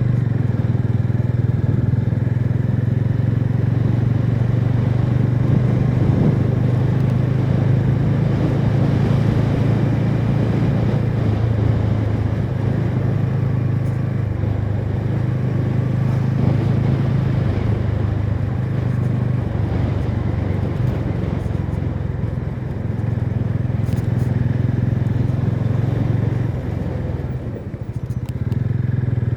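TVS Ronin's single-cylinder engine through its stock exhaust, running at a fairly steady throttle while riding. The note dips briefly near the end, as if the throttle is eased, then picks up again.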